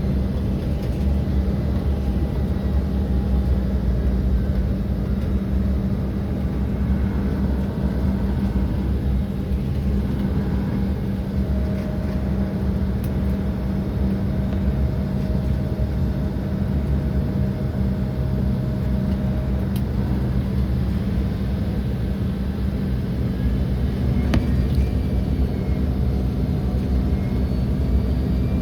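Steady low engine rumble with a steady hum, and a higher whining tone held for several seconds near the middle.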